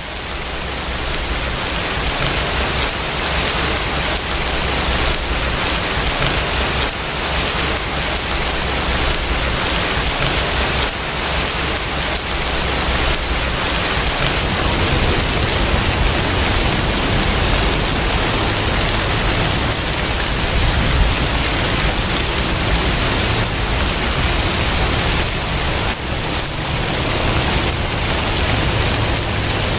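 Steady heavy rain, a dense even hiss with a low rumble underneath. It swells in over the first couple of seconds, then holds steady.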